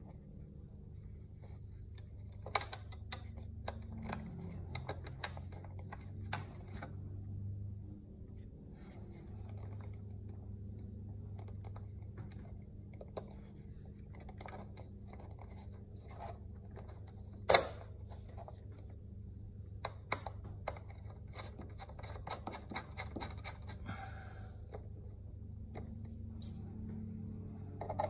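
Small clicks and scratching of hands handling parts at a trolling motor's cable fitting, over a steady low hum. There is one sharp click about seventeen seconds in and a quick run of clicks about twenty-two seconds in.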